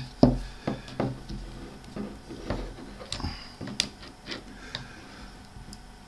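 Adjustable spanner clicking and rubbing against the metal of an N-type compression connector as the compression fitting is tightened onto the coax: a scatter of light, sharp clicks, the loudest just after the start and several more around three to five seconds in.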